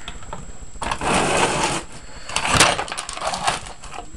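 Tools and a plastic breadboard being moved about on a workbench: about a second of scraping and rattling, then a loud sharp clack about two and a half seconds in and a few lighter clicks.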